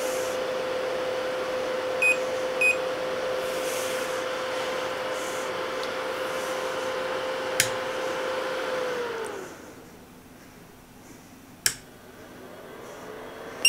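Anycubic Kobra 3D printer's stepper motors whining steadily as the print head moves down during auto-leveling, with two short beeps about two seconds in. About nine seconds in the whine falls in pitch and stops: the leveling probe has been triggered with a wrench to check that it works. A sharp click follows near the end.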